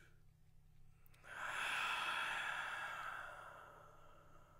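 A long, breathy drawn-in breath, like someone sucking something in, starting just over a second in and fading away over about three seconds, with a faint click just before it.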